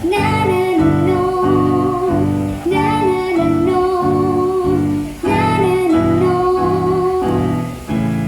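A female voice singing a melody over strummed acoustic guitar chords, about two strums a second, ending on a held chord near the end.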